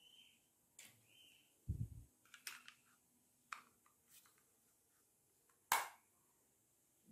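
Small plastic clicks and taps from handling a Logitech wireless mouse, with a dull thump about two seconds in. A sharp, louder click near the end comes as its battery cover is snapped shut.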